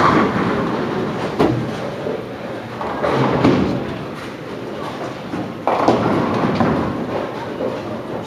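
Bowling-centre rumble and clatter: balls rolling and pin and pinsetter noise from the lanes, rising and falling in swells, with a few sharp knocks.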